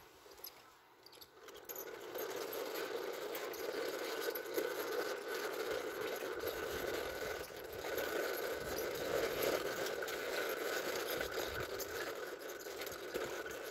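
Small hard wheels rolling over a concrete pavement, a steady rattling rumble that starts about a second and a half in and keeps on at a walking pace.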